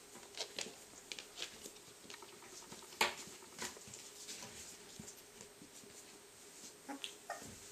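Soft, scattered clicks and rustles of Cardigan Welsh Corgi puppies and their mother moving about on bedding and newspaper in a whelping box, with one sharper click about three seconds in. Near the end come two short, faint squeaks from the puppies.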